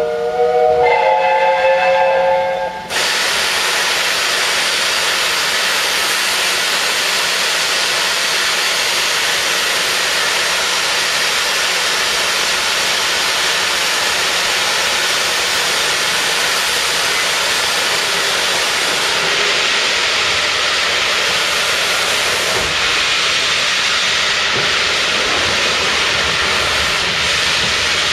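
Steam locomotive 60163 Tornado's whistle sounding a chord of several notes, stopping abruptly about three seconds in. It is followed by a loud, steady hiss of escaping steam from the engine.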